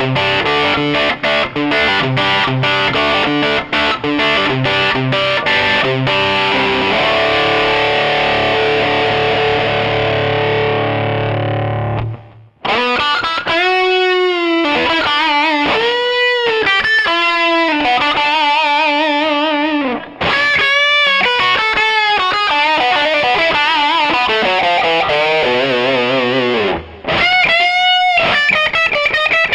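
Electric guitar played through a Takky Drive 2 Extreme drive pedal, heavily distorted. It opens with a rhythm riff of short chopped chords, then a held chord that rings out and fades. After a brief gap come single-note lead lines with wide vibrato, pausing briefly twice.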